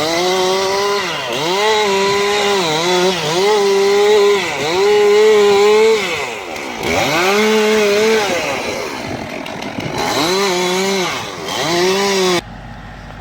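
Chainsaw running through the trunk of a fallen rubber tree: the engine's pitch sags each time the chain bites into the wood and climbs again as it clears, over and over. It cuts off suddenly near the end.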